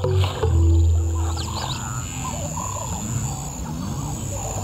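Background music, with a lion's low growling rumble in the first second and a half.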